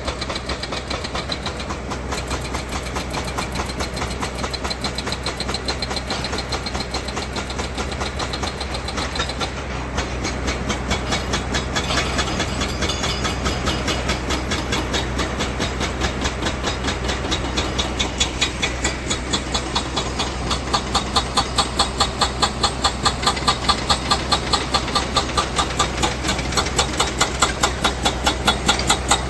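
Heavy construction-machine diesel engine running steadily, with a regular pulsing knock that grows stronger about two-thirds of the way through.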